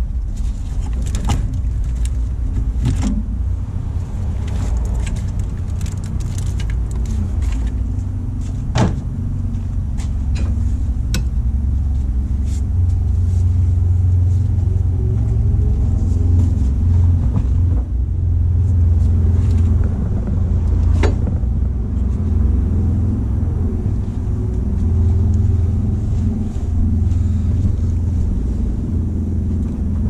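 Scattered clicks and plastic rattles of an engine-bay wiring harness being handled and pulled apart, over a heavy low rumble that swells and eases throughout.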